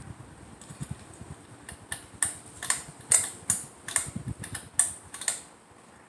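Hampton Bay Tripoli ceiling fan running, with a run of sharp clicks, about two a second, that grow louder through the middle and ease off near the end.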